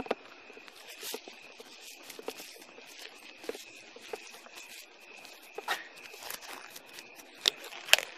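Irregular rustling and sharp clicks of handling and rubbing close to a body-worn camera's microphone, with two louder knocks near the end, over a faint steady high whine.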